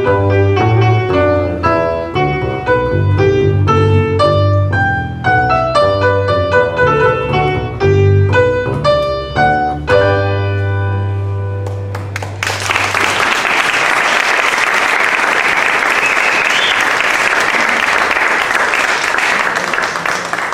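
A piano playing a quick Baroque piece, with a steady stream of notes over a bass line, ends on a held final chord. About twelve seconds in, the audience breaks into applause that lasts to the end.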